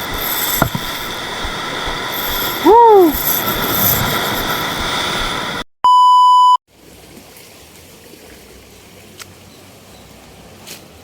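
Loud noisy sound with a short rising-and-falling tone about three seconds in, cut off abruptly, then a one-second steady electronic beep, followed by a quiet even outdoor background with a few faint ticks.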